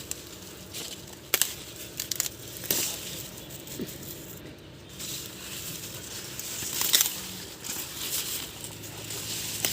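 Maize plants being handled for harvest: dry leaves and husks rustling and crackling, with a few sharp snaps as ears are broken off the stalks.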